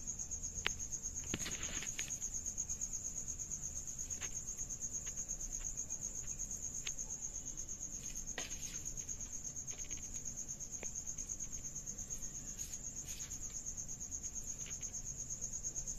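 A cricket chirping in a high, fast, even pulse that does not let up. A few faint clicks of a plastic spoon against the plate as filling is put onto the momo wrappers.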